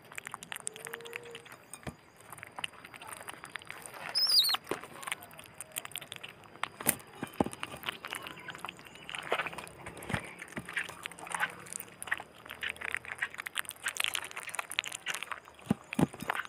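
Otter pup chewing raw fish, with many quick wet smacks and clicks, and a brief high-pitched chirp about four seconds in.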